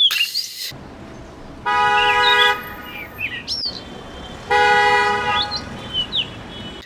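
A car horn honks twice, each honk about a second long, with bird chirps over faint background noise and a short hiss at the start.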